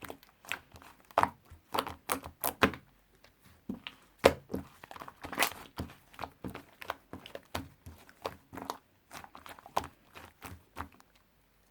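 White clay slime worked by hand, giving irregular sticky clicks and pops, several a second.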